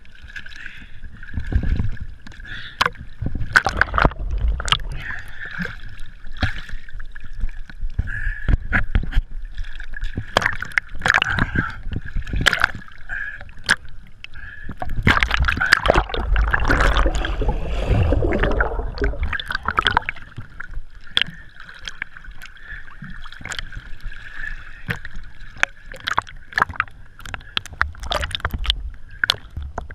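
Lake water sloshing, splashing and gurgling around a camera at the waterline as a fat bike's wheels go through the shallows, with many sharp knocks and ticks and a steady high hum underneath. About halfway through the water rises to a louder, fuller rush for several seconds.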